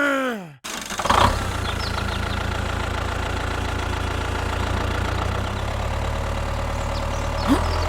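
Engine idling steadily with an even low hum, starting abruptly about half a second in. A falling vocal-like glide fades out at the very start, and a short rising-and-falling one comes near the end.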